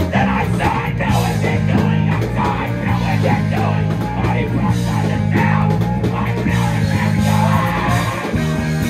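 Live rock band playing loudly: electric guitar, electric bass, drums and keyboard, with the frontman's voice into the microphone over them.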